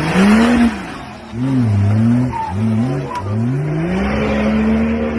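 Off-road vehicle's engine revved hard again and again, its pitch rising and dropping four times in quick succession, then climbing and held high near the end, with a rushing hiss in the first second.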